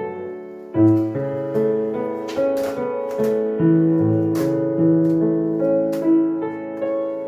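Piano music, with a sharp click every second or so.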